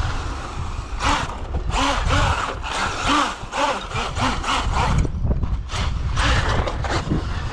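Battery-electric radio-controlled truck driving over wooden boardwalk planks: its motor whines up and down in pitch with repeated throttle bursts over a rumbling clatter from the tyres on the boards.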